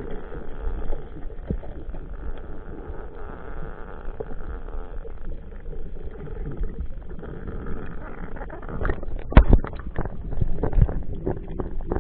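Underwater noise picked up through an action camera's housing: a steady low rumble of moving water. About nine seconds in comes a cluster of sharp knocks, the loudest of them a speargun firing.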